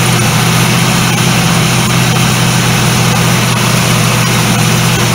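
1976 Ford LTD's V8 running steadily at a fast idle of about 1800 rpm, together with the electric radiator cooling fans blowing, a steady drone with an airy hiss over it.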